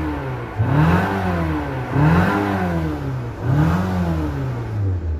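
A Nissan car's engine revved three times while standing still, its pitch rising and falling back with each blip. After a transmission replacement the owner complains it sounds like a go-kart.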